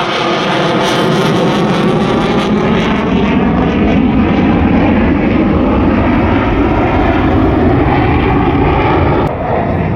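Fighter jet flying past, a loud, continuous jet-engine noise whose tone slowly sweeps as the aircraft passes. It eases a little near the end.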